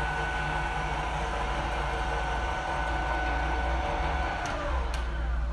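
A 1994 Ibarmia B-35 geared-head pillar drill running, its three-phase motor and gearbox giving a steady whine over a low hum. About four seconds in, the pitch falls away as the spindle runs down after being switched off, with two sharp clicks from the controls.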